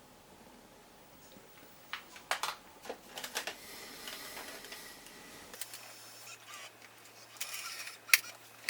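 Hands handling a plastic camcorder: scattered sharp clicks and short scrapes of the casing and its parts, with a soft rubbing stretch near the middle.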